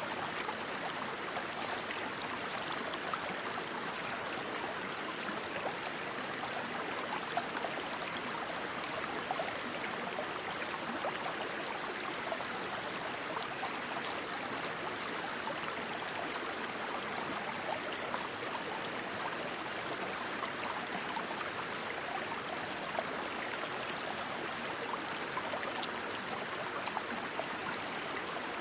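Rushing stream water flowing steadily, with short high chirps scattered throughout and a brief rapid trill about two-thirds of the way in.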